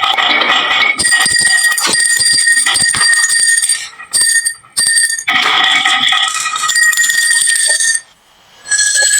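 Marbles clicking and clattering down a wooden marble run, over steady bell-like ringing tones. The ringing breaks off abruptly about four seconds in and again about eight seconds in, with a brief gap before it resumes.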